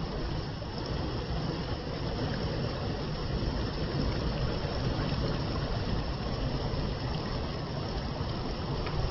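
Steady rushing of flowing water, an even noise with a heavy low rumble.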